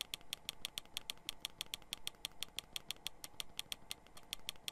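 Rapid, evenly spaced clicking, about eight a second, as a Fire Stick app list is scrolled down with the remote.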